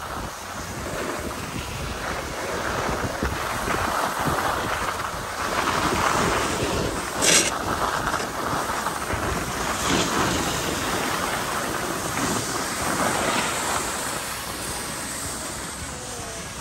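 Skis hissing and scraping over packed snow while wind rushes over the microphone, swelling and easing with the turns, with one short sharp scrape about seven seconds in.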